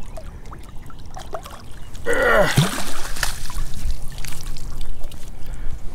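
Splashing as a flathead catfish is scooped in a landing net beside the boat, then water streaming and dripping off the lifted net back into the river. A short falling low sound comes about two and a half seconds in.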